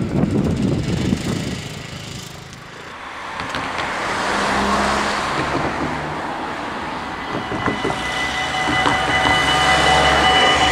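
Road vehicles passing a level crossing, then the crossing's warning bells begin ringing steadily near the end as it activates for an approaching train.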